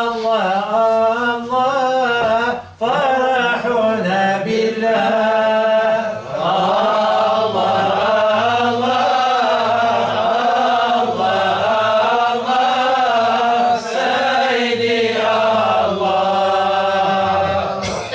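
A male Sufi chanter (musammi') singing a devotional song unaccompanied. His voice winds up and down in long held lines, with a short break about three seconds in.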